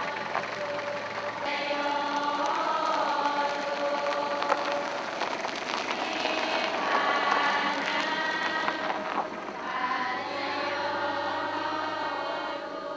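A group of many voices chanting together in unison, with long held notes that slide slowly in pitch.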